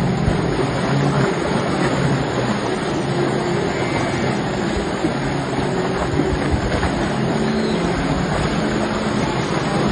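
A vehicle running: steady engine and road noise with a low hum.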